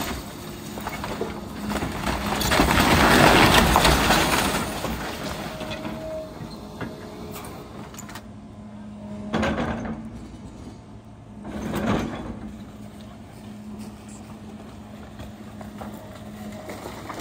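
John Deere excavator running with a steady low hum while its grapple works a pile of wooden demolition debris. There is a loud spell of crunching and crashing lumber about two to four seconds in, and two shorter surges of noise later on.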